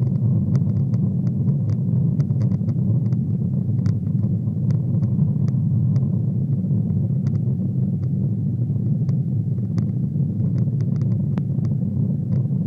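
Boeing 777 airliner's jet engines and airflow making a steady low rumble, with faint scattered clicks and rattles on top.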